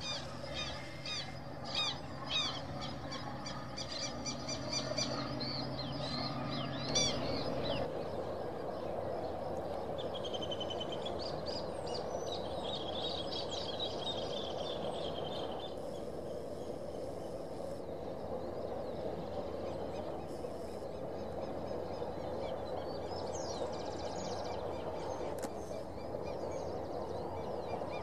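Birds calling and chirping throughout. For about the first eight seconds a steady low drone from the freight train's diesel locomotive runs underneath, then cuts off abruptly. After that a steady rushing hiss stays under the bird calls.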